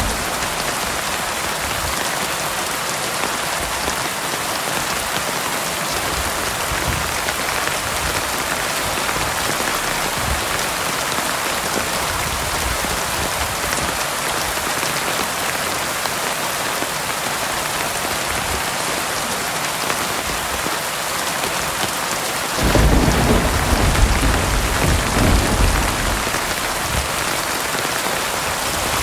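Heavy rain falling steadily. About three-quarters of the way through, a low rumble of thunder rises and lasts a few seconds over it.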